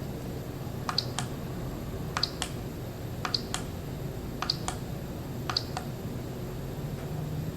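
An alarm clock's small plastic button pressed five times, about once a second, each press a quick double click of press and release, stepping the date forward one day at a time while the date is being set.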